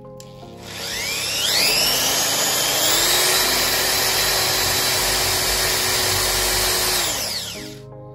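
Cordless drill with a twist bit boring into a wooden board: the motor whine rises as it spins up about half a second in, holds steady while it cuts, and winds down near the end.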